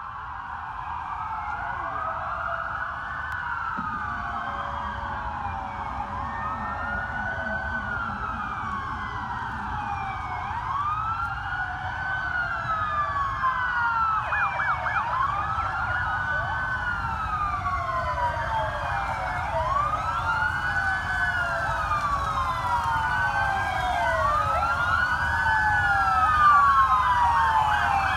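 Several police sirens wailing at once, each sweeping slowly up and down in pitch and out of step with the others, growing steadily louder as the police escort vehicles approach. A low rumble runs underneath.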